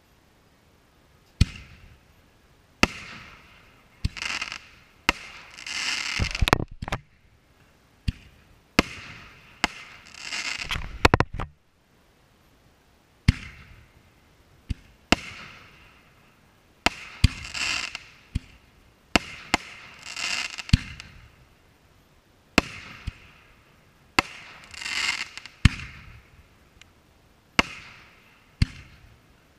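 Aerial firework shells bursting in a rapid series: sharp bangs about every one to two seconds, many trailed by a second or so of hiss.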